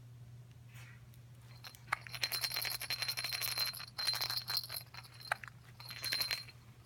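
A small jingle bell shaken in three bouts: rapid jangling with a high ringing tone, the longest bout about two seconds, the last one short, over a steady low hum.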